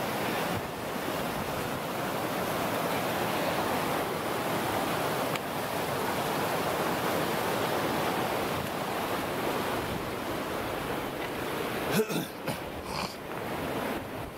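Steady rush of a mountain stream running beside the trail. A few sharp knocks near the end.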